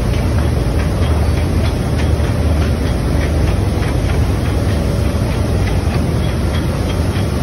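A self-unloading lake freighter's chain-and-flight elevator and conveyor running during unloading: a loud, steady mechanical rumble with a low hum and light, regular clicking from the chain.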